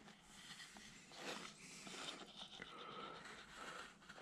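Faint, short scraping strokes of a hand carving tool cutting into wood.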